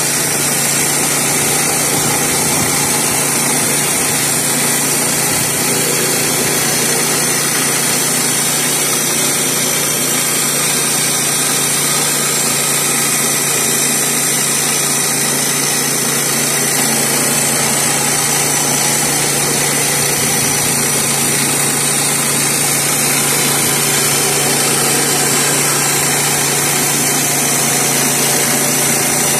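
Woodland Mills HM122 portable bandsaw mill's 7 hp engine running steadily under load while its band blade cuts a board from a sycamore slab.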